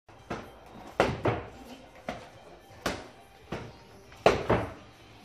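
Boxing-glove punches landing on bare and shirted torsos: about eight dull thuds at uneven intervals, two of them quick double hits.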